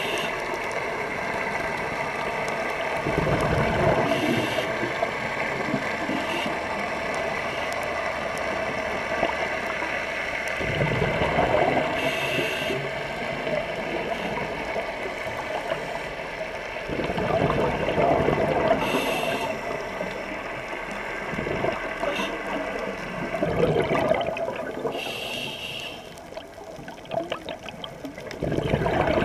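A scuba diver breathing through a regulator, heard underwater: a burst of exhaled bubbles about every six seconds, with short hissing inhalations in between.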